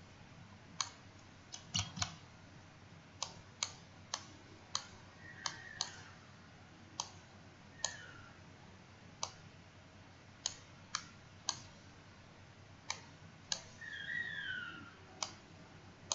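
Computer mouse clicking: about twenty sharp, irregularly spaced clicks, with a few faint high chirps sliding in pitch in between.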